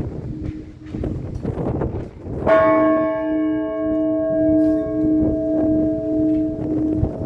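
Russian Orthodox church bells ringing: a low bell's hum lingers and pulses, and about two and a half seconds in another bell is struck, its ringing of several tones decaying slowly.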